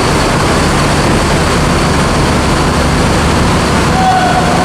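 Steady drone of heavy diesel engines running in the enclosed car deck of a ferry, with a brief higher tone about four seconds in.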